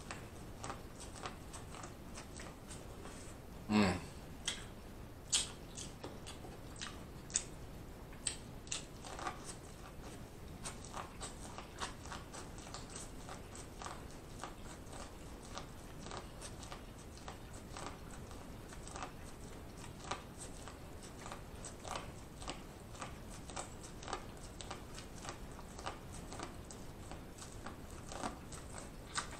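A person biting and chewing corn on the cob, a steady run of small crunches and clicks as the kernels are bitten off the cob. A brief, louder mouth sound comes about four seconds in.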